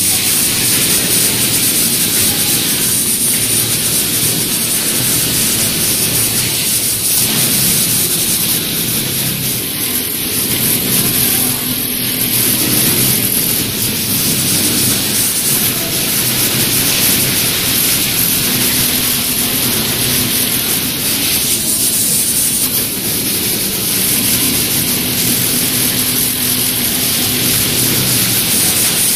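Steady machine din of an industrial sewing workshop, with industrial sewing machines, including an automatic pattern sewing machine, running.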